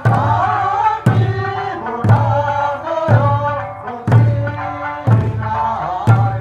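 Eisa ōdaiko, large barrel drums, struck together about once a second, under a singing voice carrying a wavering eisa song melody.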